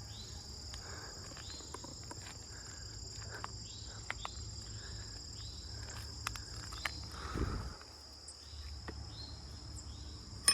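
Insects trilling steadily in two continuous high tones, with scattered small clicks and a brief low rumble about seven and a half seconds in.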